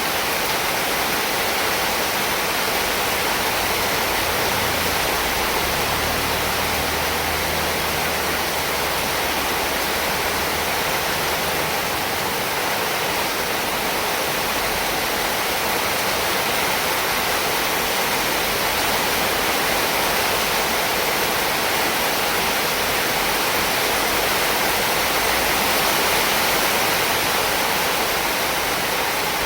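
Heavy rain falling without a break, a dense, even hiss. A low rumble sits underneath it for several seconds near the start.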